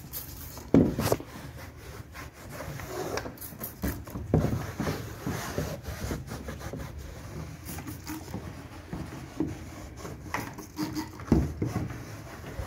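A cloth rag rubbing and wiping over the plastic deck and hatch cover of a Hobie Kona kayak, working in a protectant, with a few knocks and bumps against the hull, the loudest about a second in and near the end.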